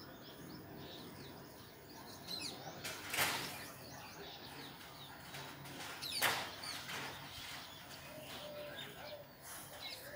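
Small birds chirping in the background in many quick, high, falling chirps. About three seconds in and again about six seconds in come two short scratchy strokes, a pen drawing lines on paper.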